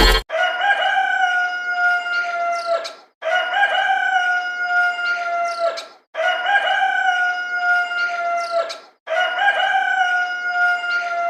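Rooster crowing sound effect: the same three-second crow played four times in a row, each held on one pitch and dropping at the end, with a short gap between.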